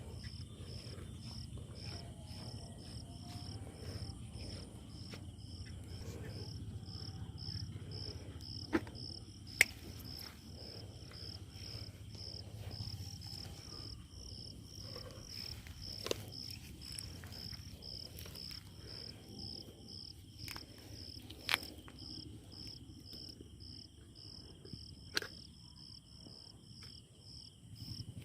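Insect chirping steadily, a high pulsed note about twice a second, over a low rumble. A few sharp clicks are scattered through.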